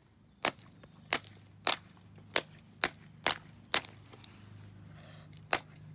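A block of ice being bashed to break frozen fidget toys free: about nine sharp, hard knocks, roughly every half second, with a pause of over a second before the last.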